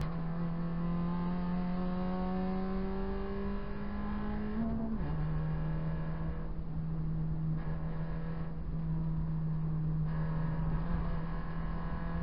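Proton Saga BLM race car's four-cylinder engine heard from inside the cabin, pulling hard with rising revs, then a sudden drop in pitch about five seconds in as it shifts up, after which it runs steadily under load.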